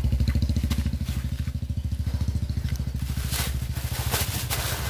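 A small petrol scooter engine idling steadily with an even, rapid low throb. Crackling rustles come in from about three seconds in.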